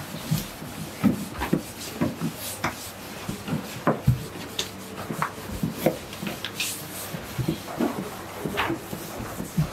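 Slim wooden rolling pins rolling out dough rounds on a floured wooden table: irregular wooden knocks and rubbing, several a second.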